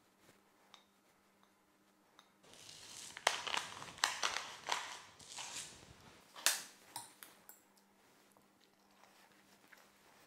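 Handling noises: a rustling stretch of about four seconds with several sharp clicks, then a few faint clicks.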